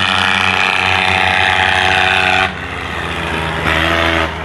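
Diesel tractor engines running hard at high revs, a steady loud drone that drops in level about halfway through and swells again briefly near the end.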